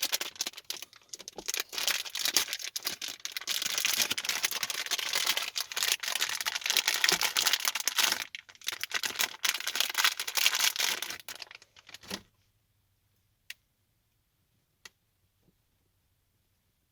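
Crinkly plastic being handled and rustled for about twelve seconds. The sound then stops suddenly, and only a few faint clicks follow.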